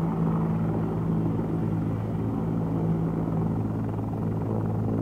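Military helicopter running on the ground with its main rotor turning: a steady low hum and rotor beat that does not change in pitch or loudness.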